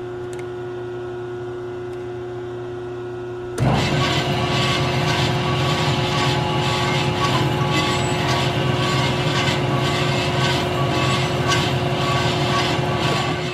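The Marvel 916M metal bandsaw's pump motor running with a steady hum. About three and a half seconds in, a much louder, rougher running noise with a hiss on top joins and holds steady, then stops near the end, leaving the hum. The saw is being run to check that it pumps fluid after being refilled with coolant.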